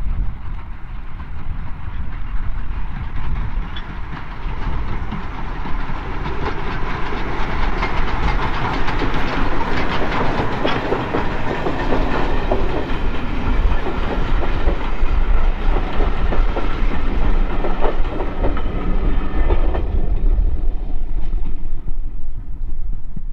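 Double-headed steam train of Caledonian Railway locomotives 828 and 419 passing close by, its wheels clicking over the rail joints. The sound swells to its loudest around the middle and thins out near the end.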